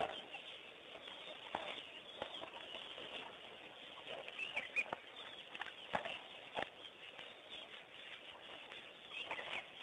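Faint outdoor wildlife ambience: a few short bird chirps over a low hiss, with scattered soft knocks and ticks.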